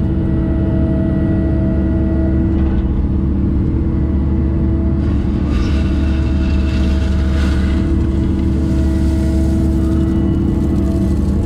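Engine running steadily at a constant speed, with a low, even hum. A few light rattles or clanks come in about halfway through.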